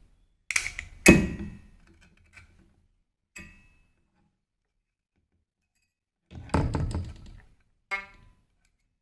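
Thin steel blade clicking and knocking against a shruti box reed while its tongue is pushed sideways to stop it touching the plate, the cause of the reed's buzzing. A few of the clicks leave a short metallic ring, and near the end there is a brief pitched twang.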